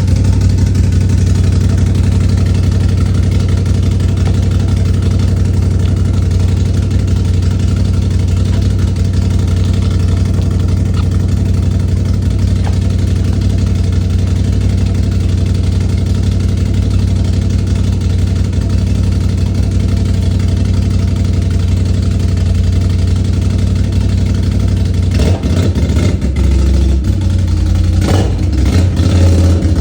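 2022 Can-Am Outlander 570 ATV's Rotax V-twin idling steadily through a custom exhaust with a Spintech 6000 Pro Street muffler and 4-inch baffles. About 25 seconds in, a few quick throttle blips raise the revs briefly.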